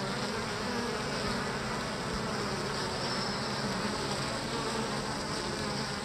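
Honey bees buzzing around a hive entrance: a steady hum of many wings.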